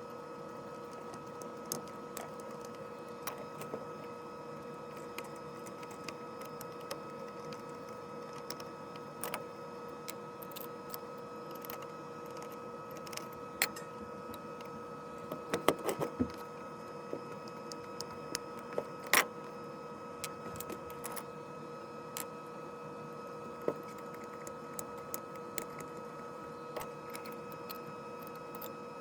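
Scattered light clicks and a few sharper knocks over a steady hum, with a short cluster of louder knocks about halfway through.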